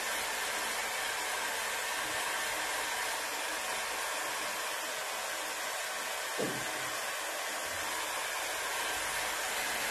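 Heat gun blowing a steady hiss of hot air, drying freshly printed plastisol ink on small screen prints. A brief low knock about six and a half seconds in.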